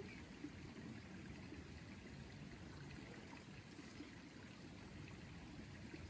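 Quiet, steady rushing background noise with no distinct events.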